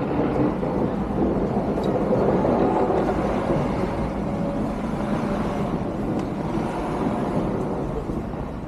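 Steady low noise of a motor vehicle running, a little louder about two to three seconds in and easing slightly toward the end.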